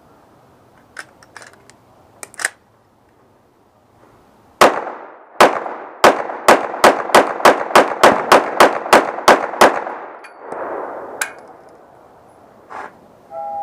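A Glock 17 9mm pistol fitted with a tungsten guide rod, fired fast to empty the magazine. Two shots come first, then about fifteen more in quick succession at roughly four a second, each echoing. A few light handling clicks come before the shooting.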